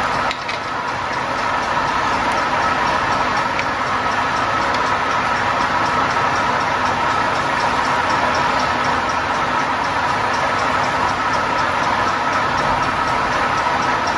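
Crankshaft grinding machine running: a steady mechanical hum and hiss with a faint regular ticking.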